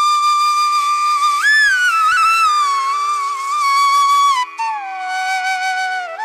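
Background flute music: a slow melody of long held notes that bend and slide downward in pitch, with a brief break a little past the middle.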